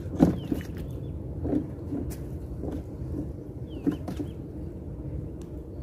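Steady low background rumble with about six short knocks spread through, and a few brief high chirps near the start and again about four seconds in.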